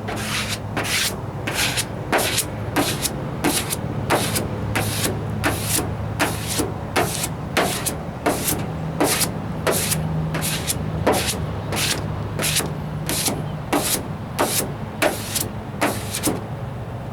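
Sandpaper on a hand sanding block rubbed back and forth over a primed steel wheel arch, about two scratchy strokes a second, over a steady low hum.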